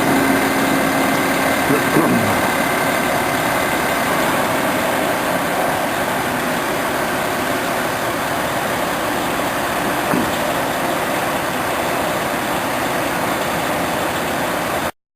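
An engine running steadily. About two seconds in, a steady tone drops in pitch, and the sound cuts off abruptly near the end.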